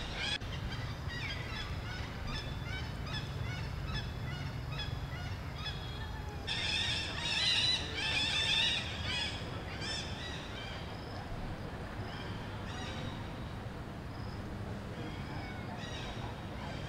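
Monkeys calling: many short, high-pitched, arching chirps and squeals overlapping one another, loudest for a couple of seconds near the middle.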